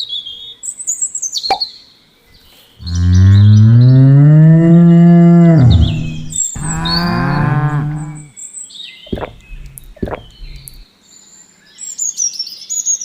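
A cow mooing twice: one long call that rises and then drops away, starting about three seconds in, then a shorter one right after it. Small birds chirp near the start and again near the end.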